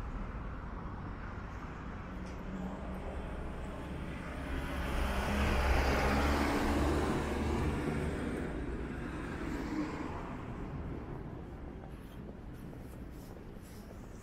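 Road traffic with a motor vehicle passing close by. Its noise swells to a peak about six seconds in and then fades away over the steady hum of the street.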